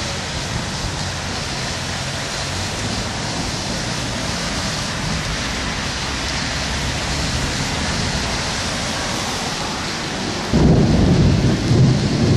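Heavy rain pouring steadily, with a loud low rumble of thunder breaking in about ten and a half seconds in and rolling for a couple of seconds.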